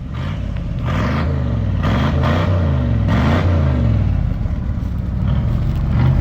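Vehicle engine running with repeated throttle blips, its pitch rising and falling about four times in the first half before settling to a steadier run.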